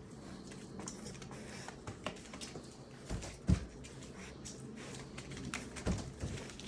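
Rottweiler puppies scuffling in play-fight: scrabbling paws and small knocks, with a louder thump about three and a half seconds in and another near six seconds.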